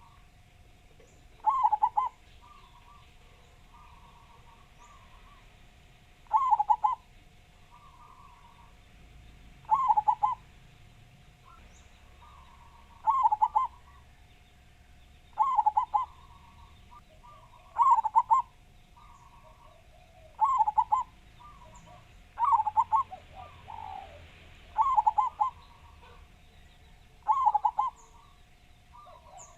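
Zebra doves (perkutut) cooing: a loud, strong song phrase comes about every two to three seconds, about ten in all, with softer cooing between them. A faint steady hum runs underneath.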